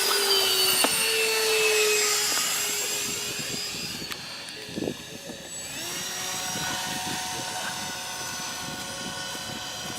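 RC electric ducted-fan jet whining as it flies past, its pitch falling slowly as it goes away, then a steadier, quieter whine from the plane further off.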